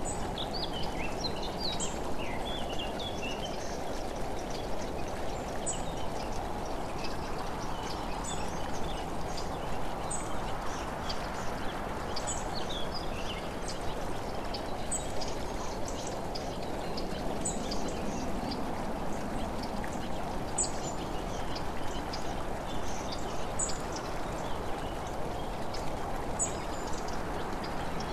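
Steady rushing road noise of travelling along the road, with birds chirping now and then and a short high chirp repeating about every two and a half seconds.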